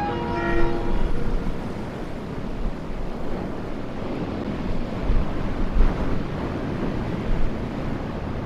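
Locomotive horn sounding one short blast of several notes at once during the first second, then the steady wash of ocean surf with wind buffeting the microphone.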